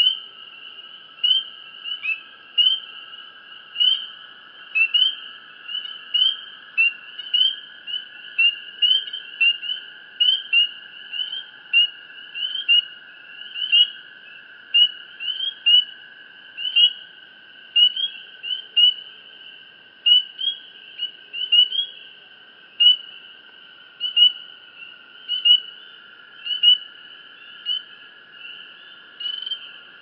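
Crickets chirping at night: short, high chirps repeating about one and a half times a second, over a steady lower trill that runs without a break.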